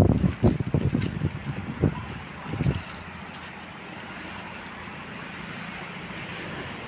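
Steady hiss of falling rain, with gusty wind buffeting the microphone in the first couple of seconds before it settles.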